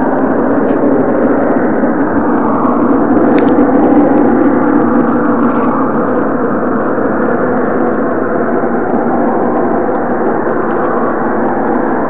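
A loud, steady, droning sound, swelling slightly about three to four seconds in: one of the so-called 'strange sounds' heard in the sky in January 2012, whose source is unexplained.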